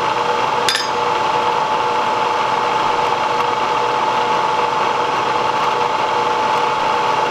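Bridgeport milling machine running, its spindle turning an end mill that has just touched off on a steel knife blade: a steady motor hum with a constant tone. One sharp click about a second in.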